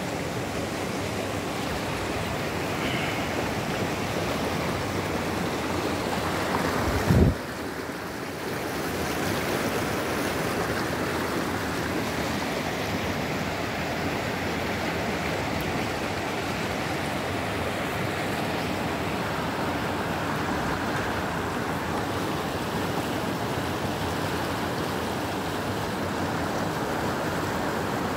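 Steady rushing of a river running fast over rocks and small rapids, with a brief low thump about seven seconds in.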